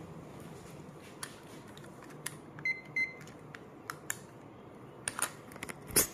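Scattered clicks and knocks of the recording phone being handled, with two short high beeps close together about three seconds in. The loudest knock comes near the end as the phone is picked up and moved.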